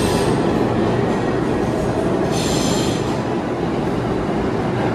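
Subway train running through the station: a steady loud rumble, with short high-pitched wheel squeals right at the start and again about two and a half seconds in.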